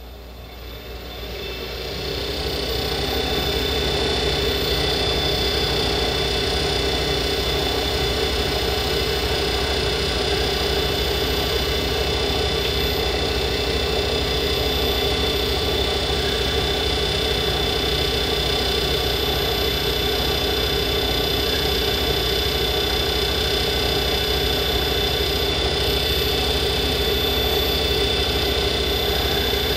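Small lathe motor spinning up over the first few seconds, then running steadily with a hum. 400-grit sandpaper on a block is held against the spinning nickel silver ferrule to reduce its front third.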